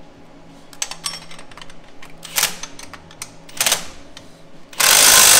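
Cordless impact driver hammering a frame bolt tight, with two short bursts and then one loud run of about a second near the end, after a few light clicks of tools on the bolts.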